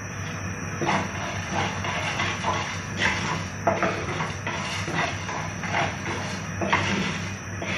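Whole spices dry-roasting in a nonstick frying pan and stirred with a wooden spatula: repeated short scraping strokes with seeds rattling across the pan, starting about a second in, over a steady hiss and low hum.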